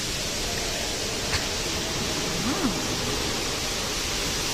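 Steady rushing noise of water falling in an indoor water feature, with a faint click about a second and a half in.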